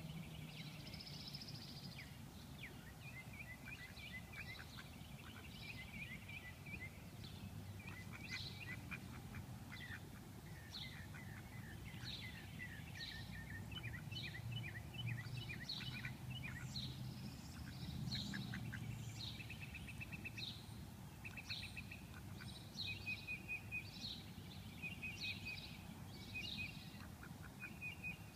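Small songbirds chirping and trilling over and over, with short high notes and quick rattling trills, above a faint low steady rumble.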